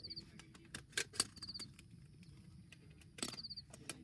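A short, high chirping call of four or five quick notes, heard at the start, about a second and a half in and again past three seconds, over scattered sharp clicks and knocks.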